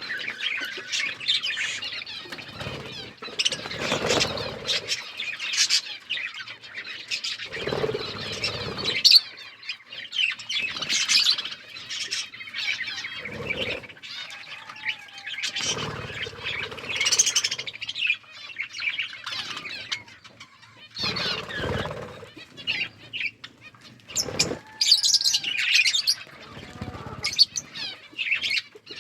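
A group of budgerigars chirping and chattering continuously, with several brief louder bursts of noise spread through.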